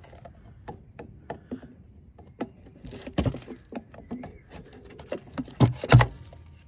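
A long metal bar prying an old rubber bump stop out of its metal cup on a Citroën DS rear swing arm: scattered scrapes and knocks, with a louder cluster about halfway through and the loudest knocks near the end.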